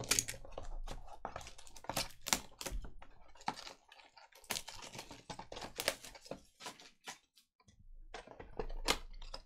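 Hands opening a shrink-wrapped cardboard trading card box: plastic wrap crinkling and cardboard scraping, a quick run of clicks and crackles. There is a short pause about two-thirds of the way through.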